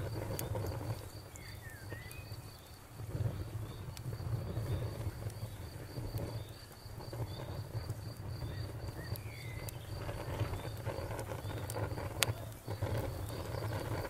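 Campfire crackling with scattered sharp pops, one louder pop about twelve seconds in, over a cricket chirping steadily at about three chirps a second, and a few short bird calls.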